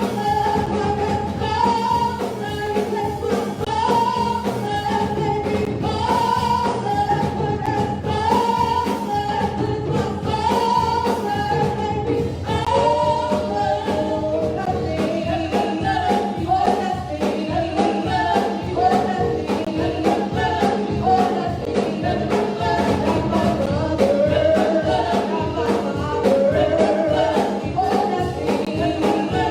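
Gospel praise music: singing over a band with a steady beat.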